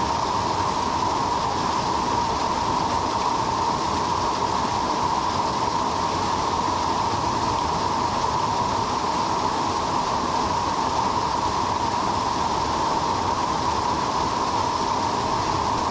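Mountain-stream waterfall pouring steadily, a constant even rush of falling water with no breaks.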